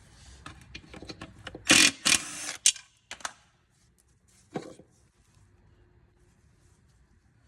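Tools and clutch parts being handled in a workshop: a run of quick clicks, a loud clatter about two seconds in, and a single knock a little before five seconds.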